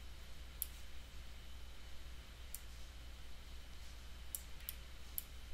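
Computer mouse clicks, about five scattered ones, over a steady low electrical hum.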